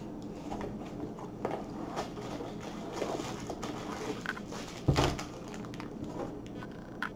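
Cardboard box being handled, with light rustles and taps, then a single thump about five seconds in as a plastic bag of diamond-painting gem packets drops out of the tipped box onto a wooden table.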